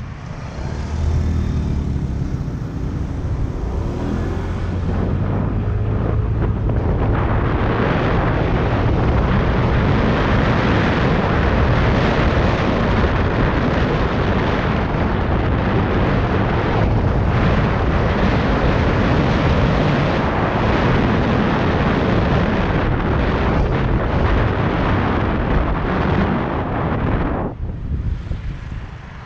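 Yamaha Tricity 125 scooter's single-cylinder engine humming as it pulls away at low speed. After about six seconds it is buried under heavy wind rushing over the microphone as the scooter picks up speed. The wind falls away suddenly near the end as it slows.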